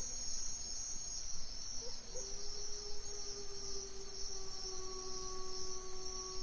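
Crickets chirring steadily in a high band, over a soft ambient music pad of long held notes that move to a new chord about two seconds in.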